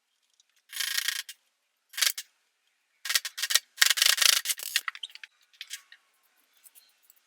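Rubber CV axle boot rubbing and scraping against the axle shaft as it is worked over the grooves, in a few short bursts with the longest, about two seconds, in the middle.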